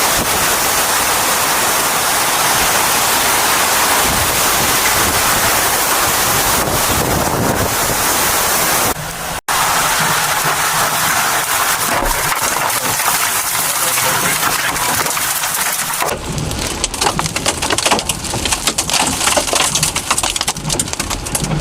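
Heavy hurricane rain and wind: a dense, steady hiss. There is a brief break about nine seconds in, and the sound turns rougher and more uneven, with low rumbling and crackle, over the last few seconds.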